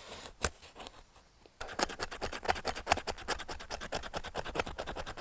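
A knife scraping a fatwood stick in quick strokes, several a second, shaving off fine resinous tinder. The scraping starts about one and a half seconds in, after a couple of light ticks.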